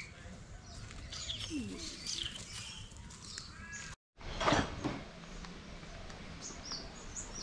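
Several birds chirping and calling, with one louder, harsher call about halfway through, just after the sound drops out for a moment.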